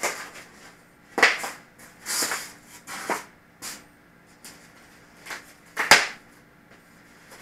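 Foam packaging being handled: pieces of styrofoam rubbing and scraping and packed parts rustling as they are lifted out, in a string of short irregular bursts, the loudest a sharp knock about six seconds in.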